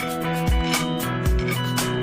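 Background music with a steady beat: guitar with a kick drum.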